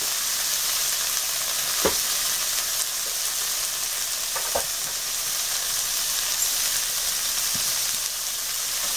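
Sliced onions and cumin seeds frying in a little oil in a nonstick pan, sizzling steadily, with two faint ticks about two seconds and four and a half seconds in.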